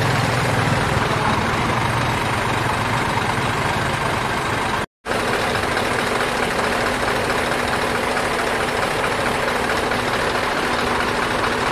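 Scania heavy truck's diesel engine idling steadily. The sound cuts out for a moment about five seconds in, then the idle resumes.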